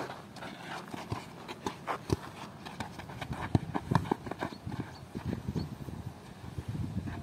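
Quick, irregular footsteps of players running and scuffing on a dirt pitch, with several sharper thuds of a football being kicked, one of the loudest about four seconds in.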